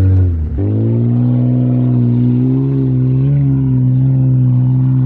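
Mitsubishi Eclipse's engine pulling at high, steady revs, heard from inside the stripped-out car. The revs jump up about half a second in, then hold almost level with a slight rise around three seconds in, over a haze of tyre and wind noise.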